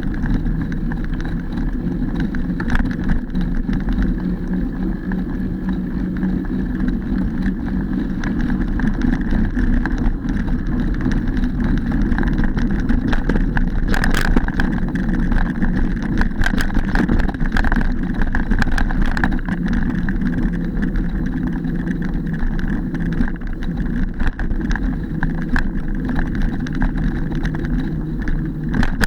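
Mountain bike riding over a dirt trail, heard from the bike or rider: steady tyre rumble and wind on the microphone, with frequent rattles and knocks as the bike goes over bumps.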